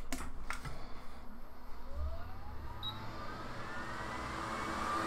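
Hot air rework station's blower spinning up: a few light clicks, then from about two seconds in a whine that rises in pitch and settles into a steady whir, as hot air is brought to the board to reflow freshly placed parts.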